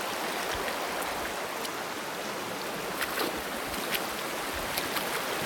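Rocky stream flowing, a steady rushing of water, with a few faint clicks.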